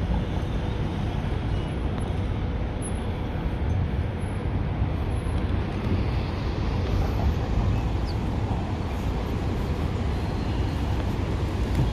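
Steady city street traffic noise: a continuous low rumble of cars on the road.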